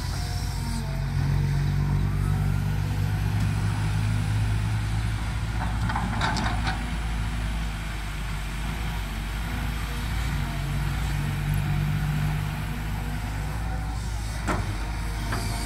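Kobelco SK200 hydraulic excavator's diesel engine running steadily as it digs and lifts its bucket, the engine working harder at times under hydraulic load. A brief clatter about six seconds in.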